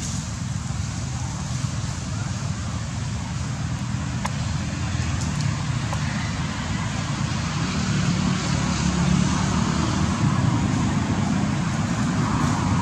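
Steady rumble and hiss of road traffic, growing a little louder in the second half.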